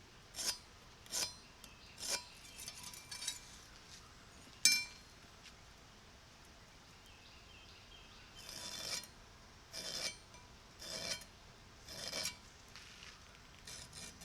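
Hand file rasping on the steel of a railroad-track anvil in separate strokes: a few quick strokes, a pause, then several longer, slower strokes. A single sharp metallic clink comes about five seconds in and is the loudest sound.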